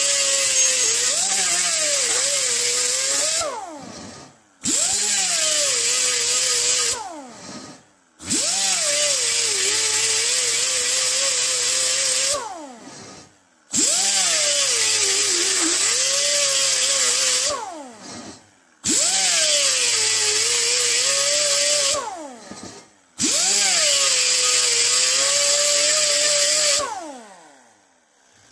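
Air-powered right-angle die grinder with a sanding disc grinding a lip off a cast aluminium wheel's centre. It runs in six bursts of a few seconds each. Its whine sags in pitch as the disc bears on the metal, and each burst ends with a falling spin-down.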